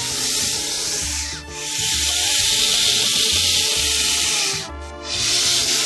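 A snake hissing in long, drawn-out hisses, one after another, with short breaks about a second and a half in and near five seconds in.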